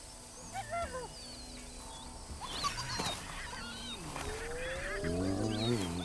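Spotted hyena giving a low, wavering call near the end, with a faint rising tone just before it. Small birds chirp in the background.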